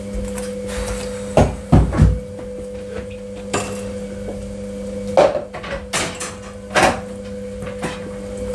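Hard knocks and clunks of objects being handled and set down while a fridge freezer is emptied and refilled, about six in all. The loudest come close together about one and a half to two seconds in, and the rest are spread through the second half. A steady low hum sits underneath.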